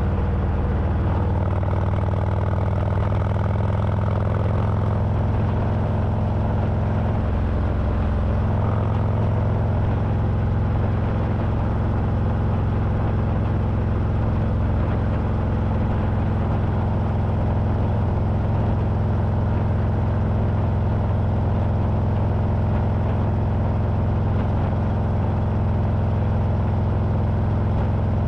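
Harley-Davidson Milwaukee-Eight V-twin engine running steadily at highway cruising speed, heard from on board the motorcycle.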